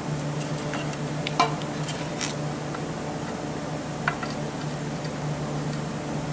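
Small clicks and taps of metal transmission parts being handled and positioned, with two sharper ticks, one about a second and a half in and one about four seconds in, over a steady low hum.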